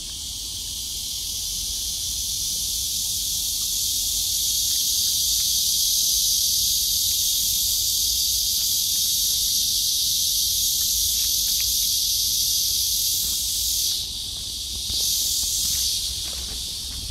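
Insect chorus: a loud, steady, high-pitched buzzing hiss that dips away briefly near the end and then comes back.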